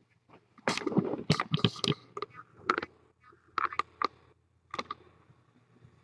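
Handling noise from the camera being picked up and repositioned: bursts of clicks, knocks and rubbing, loudest in the first two seconds and then in shorter clusters until about five seconds in.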